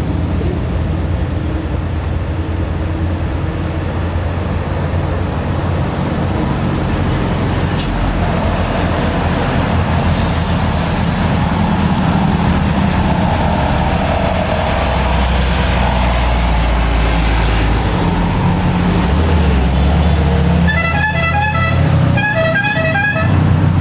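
A heavily loaded Hino 500 truck's diesel engine pulling uphill, growing louder as it nears. Near the end a horn sounds in two quick runs of short toots.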